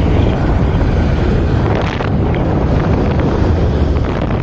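Wind buffeting the microphone on a moving two-wheeler, over steady engine and road rumble. A large truck passes close alongside near the end.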